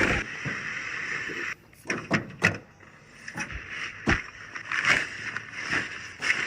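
A string of short, sharp knocks and clicks at irregular intervals, about half a dozen, over a faint steady hiss.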